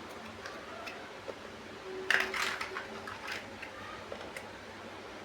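Plastic toy building bricks clicking and clattering as they are handled and pressed together, with a quick cluster of clicks about two seconds in.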